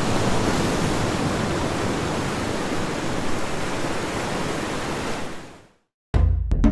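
Ocean surf washing onto a beach, a steady rushing noise that fades out about five and a half seconds in. After a brief gap, djembe hand drums start up with sharp, quick strikes near the end.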